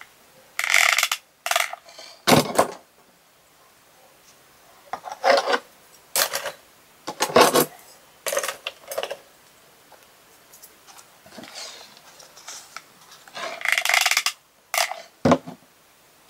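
Hands handling and rubbing small craft doll pieces, irregular short rustles and scrapes with a few knocks. Near the end comes a sharper knock as a hot glue gun is set down on the table.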